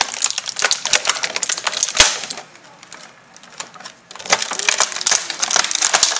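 Rapid clicking and rattling of plastic toy figures and their packaging being handled, with one sharp knock about two seconds in and a short lull in the middle.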